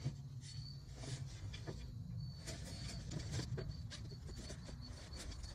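Hands working the nylon straps, buckle and padded fabric seat of a climbing treestand: scattered rustles and sharp clicks, thickest from about one to three and a half seconds in.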